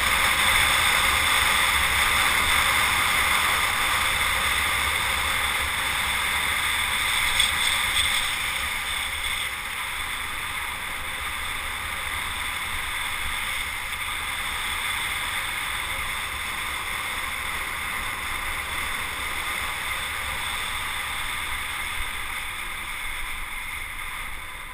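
Steady rush of wind over the microphone with tyre noise on asphalt from a fast bicycle descent. It eases off somewhat about ten seconds in, and a single knock comes about seven and a half seconds in.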